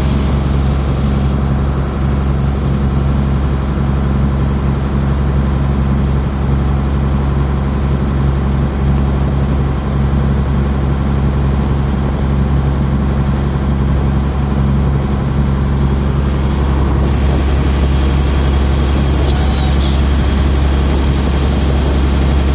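Engine of a small wooden tour boat under way, a loud, steady low drone that holds one pitch, with more hiss coming in over it about three-quarters of the way through.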